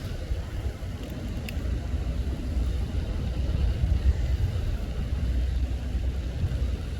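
Steady low rumble, with two faint clicks about a second and a half in.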